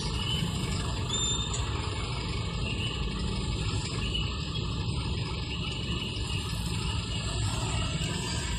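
Steady idling engine rumble heard from inside a vehicle stopped in traffic, mixed with the hum of the motorcycles and other vehicles waiting around it.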